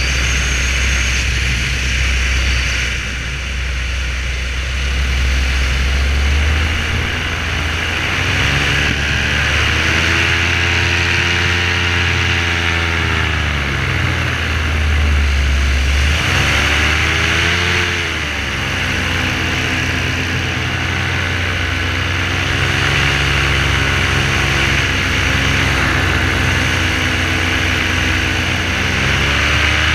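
Parajet V3 paramotor's two-stroke engine and propeller running in flight, the pitch climbing and falling a few times as the throttle is worked.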